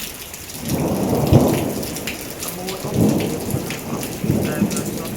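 Hurricane rain falling steadily with many small drop ticks, broken by three loud low rumbling surges of storm noise about one, three and four seconds in.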